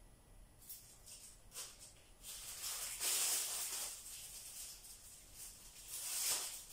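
Black plastic bag sheeting rustling and crinkling as it is handled, loudest about three seconds in and again near the end.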